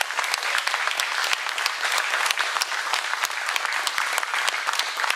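An audience applauding, many hands clapping together.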